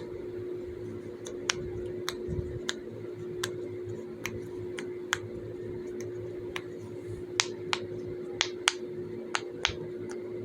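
Silicone pop-it fidget toy shaped like Patrick Star being pressed, its bubbles popping in sharp single clicks at an uneven pace, coming faster in the second half.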